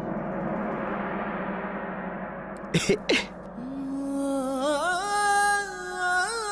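Dramatic background score: a gong-like swelling shimmer, two sharp hits about three seconds in, then a long wavering pitched note.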